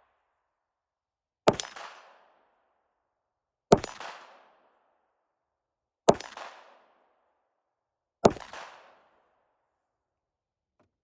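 Four 9mm pistol shots from a Glock 43X, slow aimed fire about two and a half seconds apart, each a sharp crack with a short echoing tail.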